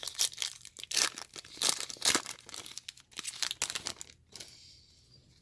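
A trading-card pack's foil wrapper being torn open and crinkled: a quick run of irregular crackles that dies away about four seconds in.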